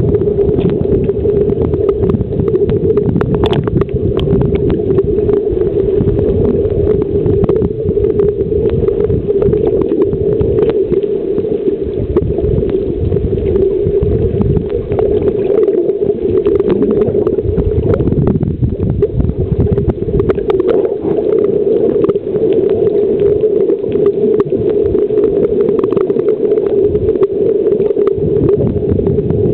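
Muffled underwater sound from a submerged camera: water sloshing and bubbling with scattered clicks, over a steady low drone.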